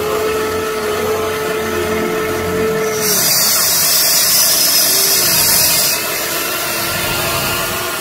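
Huina radio-controlled model excavator working: a steady motor whine for the first three seconds while the boom moves, then a loud hiss for about three seconds in the middle.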